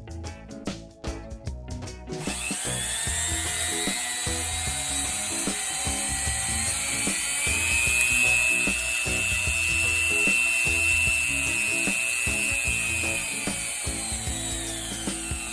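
Over background music, a mini rotary tool's motor starts about two seconds in, rises to a high-pitched whine and runs steadily. Near the end its pitch slides down as it winds down.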